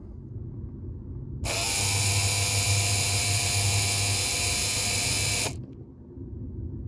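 Electric motor of a BMW Z4 E85 convertible-roof hydraulic pump, just rebuilt with a replacement varistor, runs with a steady high whine for about four seconds, starting about a second and a half in and cutting off suddenly. A low hum sounds before and after it.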